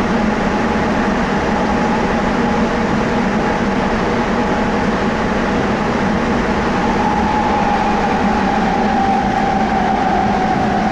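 Sapporo Municipal Subway Toho Line rubber-tyred train running between stations, heard from inside the car: a steady rolling rumble under a held motor whine that grows a little stronger in the second half.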